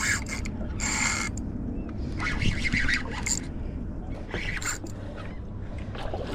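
Wind rumbling on the microphone while a hooked bluefish is fought on a spinning rod, with three short bursts from the spinning reel as line is cranked in and pulled off against the drag.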